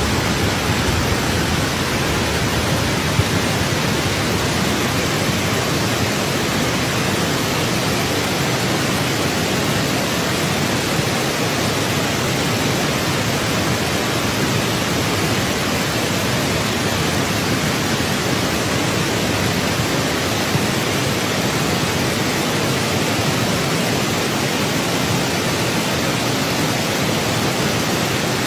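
Steady, even rushing noise that neither swells nor breaks.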